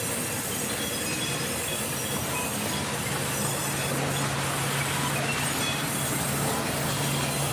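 Large vertical band saw ripping lengthwise through a wood slab: a steady, dense screech of the blade cutting wood over the running machine. A low steady hum joins about three seconds in.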